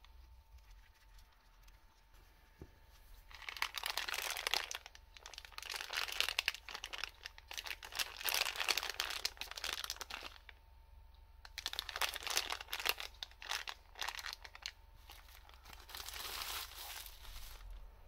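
Small plastic bag crinkling as it is handled, in three spells with short pauses between.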